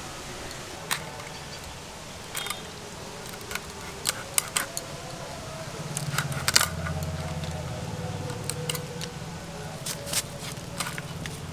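Scattered sharp clicks and snaps as giant freshwater prawns are cut and cleaned by hand. A low steady hum comes in about halfway.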